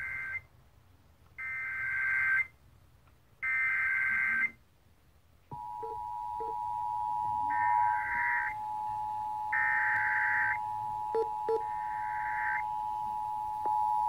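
Emergency Alert System test over FM radio. Three one-second bursts of the screechy digital header data sound a second apart. About five seconds in, the steady two-tone attention signal starts and holds, and three more one-second header bursts sound over it.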